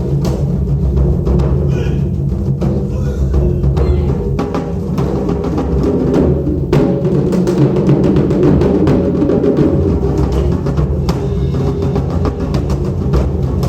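Ensemble of Japanese taiko drums played together in a dense, continuous rhythm of heavy strikes.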